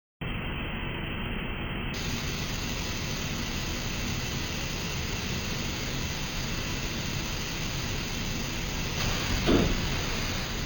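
Steady hissing machine-shop noise with no clear rhythm or tone. About nine seconds in, a brief louder swell slides down in pitch.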